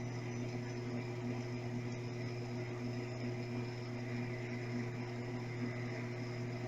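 Brastemp Clean 5 kg top-loading washing machine's motor running with a steady hum during its intermediate spin cycle, after the wash water has drained.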